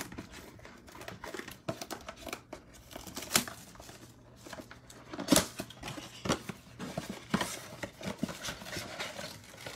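Clear plastic shrink-wrap crinkling and tearing as it is stripped off a cardboard trading-card blaster box, with irregular crackles and a couple of sharper snaps near the middle.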